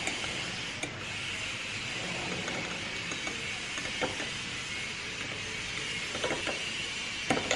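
A metal fork stirring yeast and sugar into milk in a small ceramic bowl: soft scraping with a few light clinks of the fork against the bowl.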